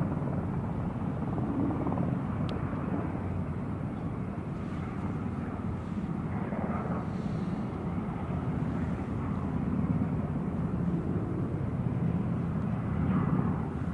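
Distant jet airliner engines giving a steady rumble.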